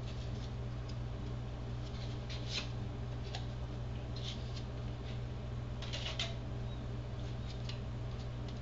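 A putty knife scraping and spreading setting-type joint compound onto the back of a drywall patch: soft, scattered scrapes over a steady low hum.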